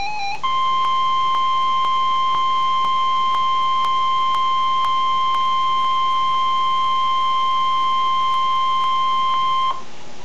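NOAA Weather Radio 1050 Hz warning alarm tone: one steady high tone lasting about nine seconds, starting about half a second in and cutting off suddenly near the end, leaving radio hiss. It is the alert that a warning message is about to be read.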